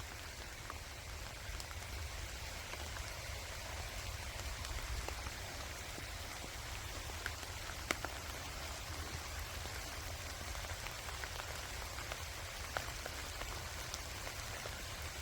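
Gentle rain falling steadily, a soft even patter with scattered louder individual drops ticking, a few standing out about halfway through and again near the end.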